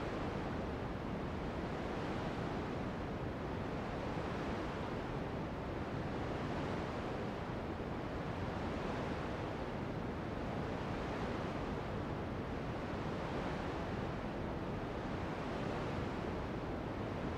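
Ocean surf washing steadily: a continuous rush of breaking waves and foam.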